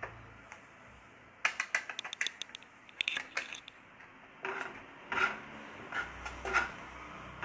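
A quick run of small metallic clicks and clinks from a spoon, starting about a second and a half in. Then a steel ladle stirs the masala into fried onion and capsicum in a nonstick kadai, with several scraping strokes.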